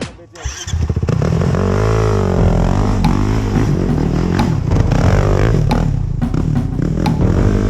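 Kawasaki KFX 450R ATV's single-cylinder four-stroke engine revving up and down as it is ridden on a trail, with scattered knocks and clatter.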